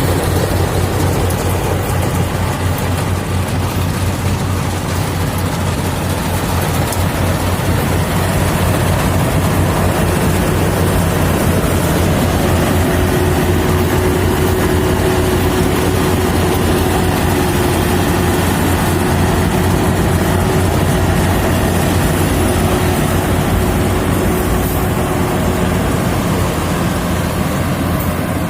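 Yanmar AW70 rice combine harvester running steadily under load, its diesel engine and threshing machinery making a continuous drone with a steady whine over it.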